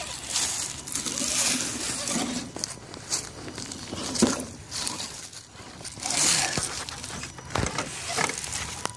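Irregular rustling and crunching of footsteps in dry leaves and an RC crawler's tyres and body scraping over bricks and rubble, with a few sharp knocks, the clearest about four seconds in and near the end.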